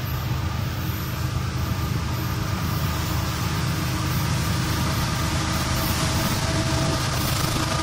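Diesel locomotives of an approaching CSX freight train working hard under load as they pull upgrade, a steady deep engine rumble that grows gradually louder as they near.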